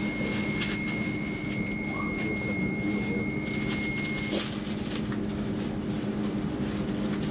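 Interior running noise of a Stockholm commuter rail X10 electric multiple unit: a steady low hum with a thin high whine that stops a little over four seconds in, and a few faint ticks.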